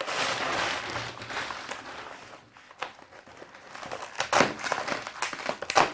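Mail packaging crinkling and rustling as it is handled and opened, with a few sharper crackles.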